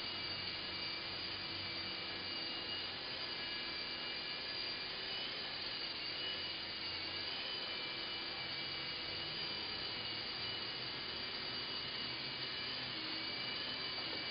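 Hacked E-flite Blade mCX micro coaxial helicopter hovering, its small electric motors and rotors giving a steady whine with several high tones that drift slightly in pitch.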